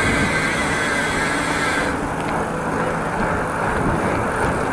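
Wind rushing over the microphone of a camera carried on a moving bicycle, a steady rumble and hiss; the high hiss dulls about two seconds in.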